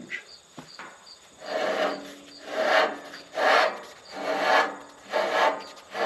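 Rubber belt being worked by hand on a Wood-Mizer LT35 bandsaw wheel: a run of rasping rubbing strokes, about one a second, starting about a second and a half in.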